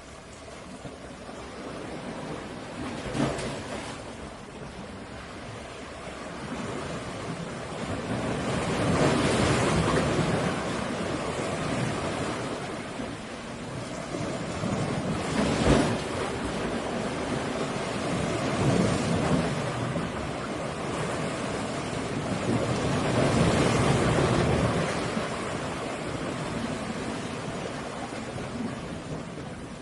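Sea waves breaking and washing ashore, the surf swelling and ebbing every few seconds, with a couple of sharper crashes.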